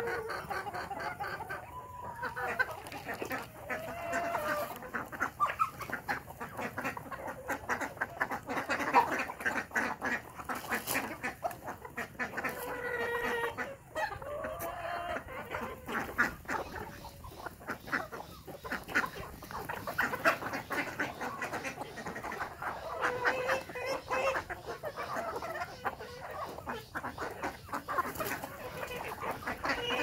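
A mixed flock of desi chickens and ducks calling over one another without a break: a steady stream of hens' clucks with duck quacks among them.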